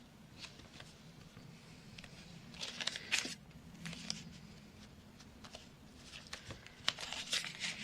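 Paper pages and card being handled: soft rustling with a few light clicks, strongest in two brief spells, about three seconds in and near the end, over a faint steady hum.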